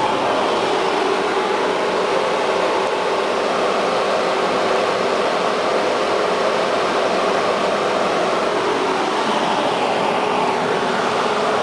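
Konstal 105Na tram running: a steady rushing noise with a constant hum.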